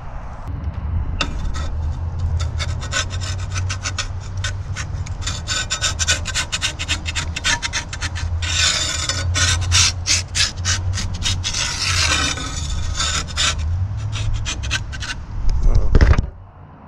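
Metal spatula scraping and rasping against the smoker's grill grate as it is worked under a trout fillet, in quick scratchy strokes with two louder stretches in the middle. A short, heavy thump comes near the end.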